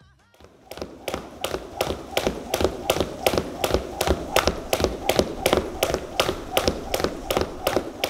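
Training shoes landing and tapping on a wooden gym floor in a quick, even rhythm of about three hits a second, starting a little under a second in, as in skipping or footwork drills.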